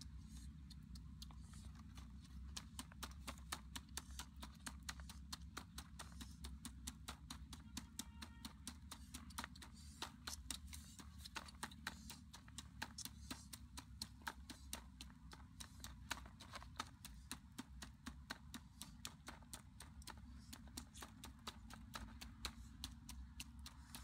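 Wooden pestle pounding in a small bowl: steady, rapid hollow knocks, a few a second, starting about two to three seconds in.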